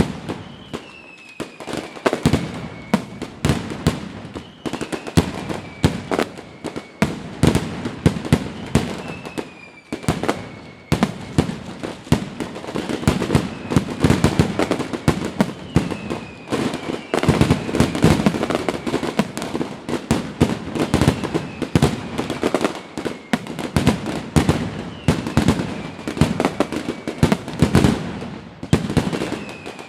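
Fireworks display: a dense, continuous barrage of rapid bangs and crackling, with a high whistle that falls in pitch coming through every few seconds.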